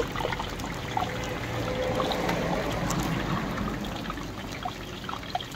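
Medu vadas deep-frying in a large kadai of hot oil, the oil sizzling steadily with small scattered crackles.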